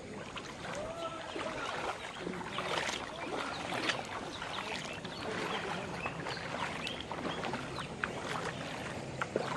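Floodwater sloshing and lapping, with many small splashes and knocks throughout.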